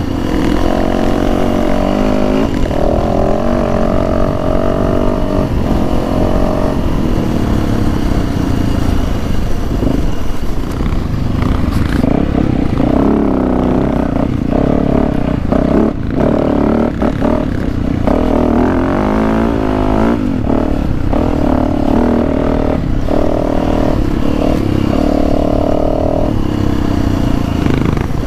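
Dirt bike engine running hard under the rider, its revs rising and falling with throttle and gear changes. Short knocks and clatter come from the bike going over a rocky trail.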